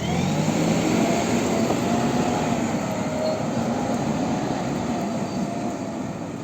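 A heavy vehicle engine running steadily, its pitch wavering a little, under a steady rushing noise.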